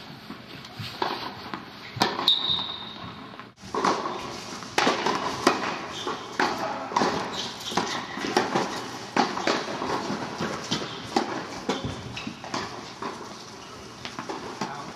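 Tennis rally on an indoor hard court: irregular sharp knocks of racket strikes and ball bounces, echoing in the hall.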